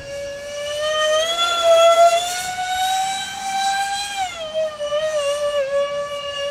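Electric ducted fans of a Freewing Su-35S model jet whining at a high pitch. The whine climbs over the first few seconds, drops about four seconds in, and then holds steady.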